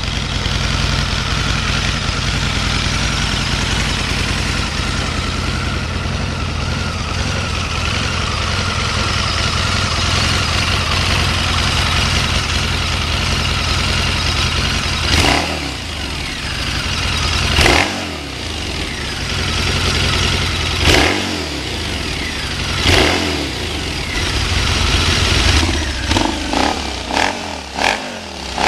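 2012 Harley-Davidson V-Rod Muscle's liquid-cooled Revolution V-twin idling steadily through its mostly stock exhaust, whose ends have a few holes punched in them. About halfway through it is revved in four single blips, then in a quick run of short blips near the end.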